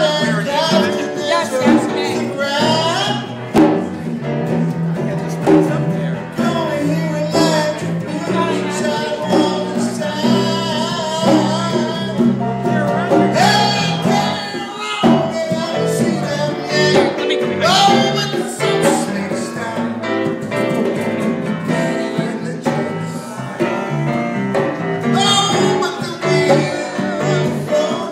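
Live band playing a lively Latin-flavoured jam, with conga drums and electric guitar and a voice singing over them.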